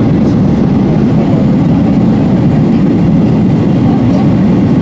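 Steady, loud low cabin roar of a Boeing 737-800 airliner, engine and airflow noise heard from a window seat behind the wing.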